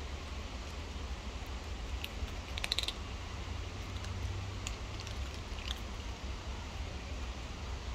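Cats crunching dry kibble: scattered crisp chewing clicks, with a quick cluster of them about two and a half seconds in, over a steady low rumble.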